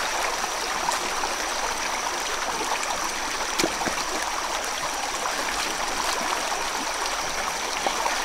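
Shallow rocky stream running over stones, a steady rush of water. There are a few faint knocks and splashes as stones are shifted in the stream bed.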